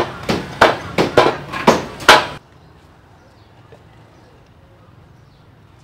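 Repeated sharp chopping strikes, about three a second, which stop abruptly a little over two seconds in; after that only faint background sound remains.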